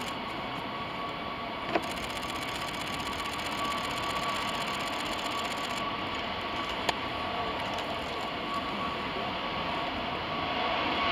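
Airbus A340-600's four Rolls-Royce Trent 500 jet engines at takeoff thrust on the takeoff roll: a steady jet roar with a high fan whine, growing louder near the end as the airliner speeds past. Two short sharp clicks, about two and seven seconds in.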